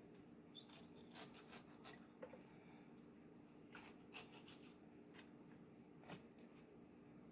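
Faint, scattered soft clicks and wet handling noises of hands pushing garlic pieces into a raw pork roast, over a low steady hum.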